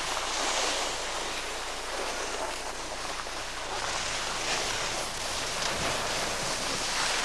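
Rushing noise of wind over a camcorder microphone mixed with skis hissing and scraping over packed snow, rising and falling in irregular swells.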